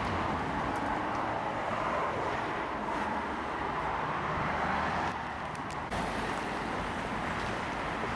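City street traffic noise: a steady wash of cars passing on the road.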